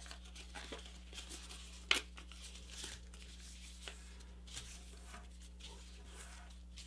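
A sheet of printer paper rustling and crinkling faintly as it is folded and creased by hand, with scattered small crackles and one sharper crackle about two seconds in.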